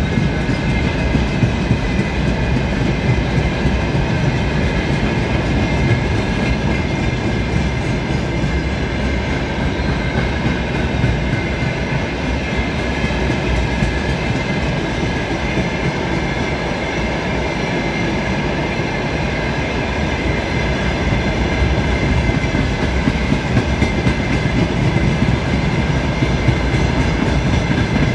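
Freight train of open-top wagons rolling past close by: a steady rumble and rattle of steel wheels on the rails, with a faint high ringing over it.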